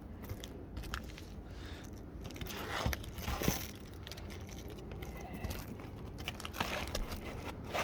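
Brittle asphalt roof shingles being handled and slid about, with faint crunching, scraping and scattered small clicks and a couple of sharper ticks about three seconds in.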